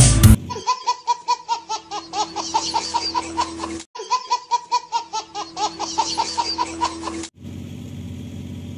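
Baby laughing in a rapid string of high giggles, about five a second and slipping down in pitch, the same few-second laugh played twice in a row. A low steady hiss follows near the end.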